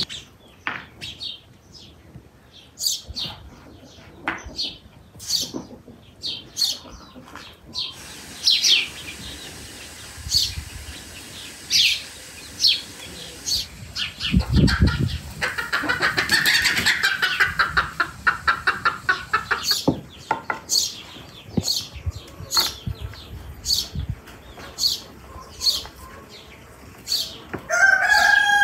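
Garden birds chirping in short, quick calls throughout, and a rooster starting to crow right at the end.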